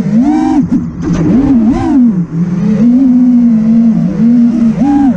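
FPV racing quad's brushless motors (2306-size, 2450 kV) spinning tri-blade props, a loud whine whose pitch rises and falls over and over as the throttle is punched and eased through turns.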